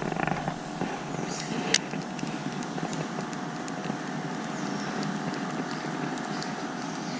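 Steady background drone of a distant motor, with one sharp click a little under two seconds in.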